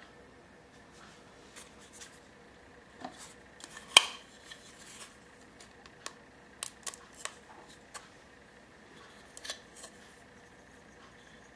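Riparium planter parts being handled: a clear plastic cup with a mesh liner clicking and scraping against a dark mounting plate as they are fitted together. One sharp click about four seconds in is the loudest, with scattered smaller clicks after it.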